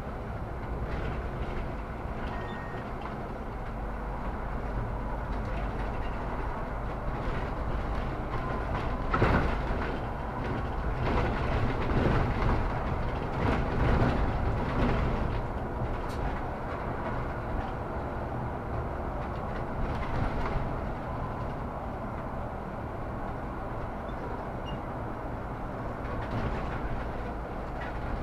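Solaris Urbino 18 articulated city bus driving, a steady engine and road rumble. It gets louder through the middle, with several knocks and rattles between about 9 and 21 seconds in.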